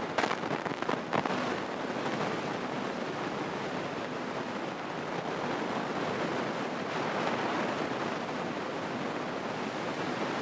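Steady engine and air noise inside the cabin of a Grumman light single-engine airplane in cruise flight, with a few brief clicks about a second in.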